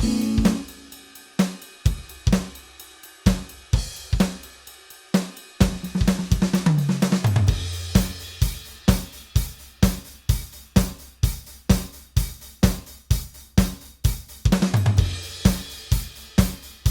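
EZ Drummer 3 software drum kit played live from a keyboard: a steady beat of kick, snare and hi-hat that opens on a cymbal crash, with tom fills stepping down in pitch about six seconds in and again near the end.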